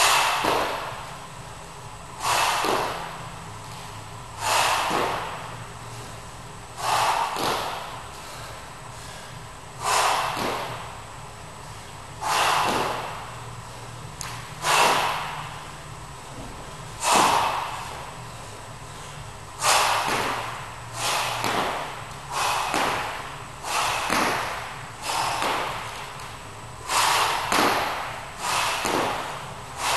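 A person doing a dumbbell workout, with a short, sharp, noisy burst at each repetition. The bursts come about every two and a half seconds, then quicken to about one a second past the middle.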